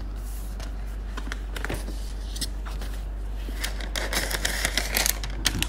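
Cardboard gift boxes and paper being handled and opened: scattered light clicks and rustling, busier about four seconds in, over a steady low hum.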